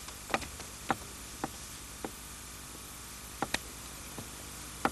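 Footsteps of hard-soled shoes on a hard floor: sharp single steps about half a second apart, a pause, then a few more steps near the end, over a low hiss.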